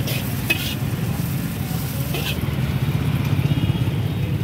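A steel ladle scraping and clinking against an iron wok as vegetables are stir-fried, with two sharp clinks, under a steady low mechanical rumble.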